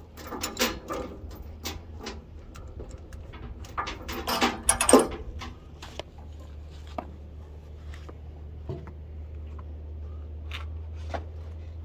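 Steel load chain and chain binder clinking and clanking as the chain is worked and cinched down, loudest about four to five seconds in. After that only a few single metal clinks over a steady low hum.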